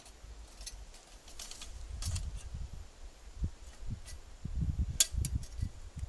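Small clinks and rattles of outdoor gear being handled at a backpack, with rustling and low handling bumps that grow in the second half. One sharp click about five seconds in is the loudest sound.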